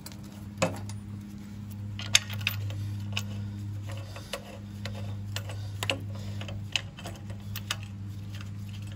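Irregular light metallic clicks and taps as a Cat pressure-washer pump is pushed and seated onto the engine and its parts are handled, over a steady low hum.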